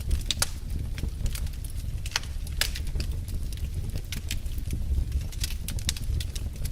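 Fire burning in a fireplace, crackling and popping at irregular intervals over a steady low rumble of the flames.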